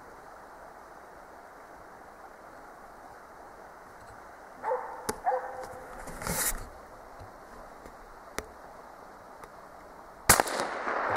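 A single loud rifle shot from a suppressed Sauer 202 in 6.5x55 about ten seconds in, followed by a rolling echo for nearly a second. Earlier, about five seconds in, a dog barks a few times, the baying of the moose dog.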